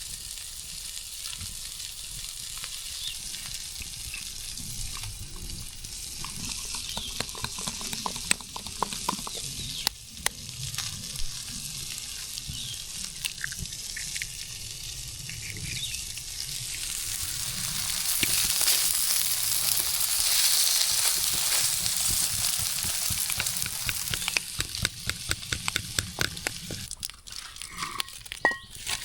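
Food frying in a pan over a campfire: a steady sizzle with small pops and crackles, swelling louder about two-thirds of the way through.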